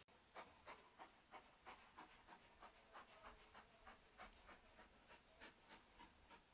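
Steam locomotive exhaust beats, faint and regular at about three a second, heard from a carriage of the train it is hauling.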